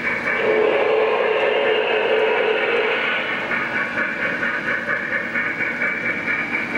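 O gauge model articulated steam locomotive running, its onboard speaker playing steady steam-engine running sounds, with a steady low tone from about half a second to three seconds in.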